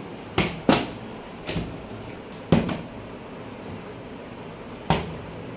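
Partly filled plastic drink bottle being flipped and landing on a table: five sharp thuds, two close together near the start, one about a second and a half in, a loud one at about two and a half seconds, and a last one near the end.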